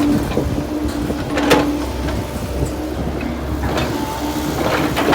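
Kobelco hydraulic excavator's diesel engine running steadily with a held tone, with about three short metallic clanks or scrapes while it digs.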